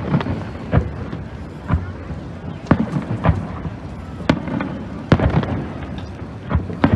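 Fireworks display: about ten sharp bangs of bursting fireworks, roughly one a second and at times two in quick succession, each trailing off in a short rumble.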